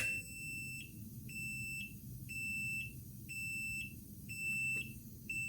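Mechanical ventilator prototype's safety alarm sounding: a single high beep about half a second long, repeating about once a second, six times.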